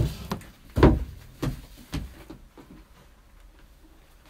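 A few dull knocks and clatters of a lightweight aluminium tripod being handled and set down, the loudest about a second in, fading to faint rustling in the second half.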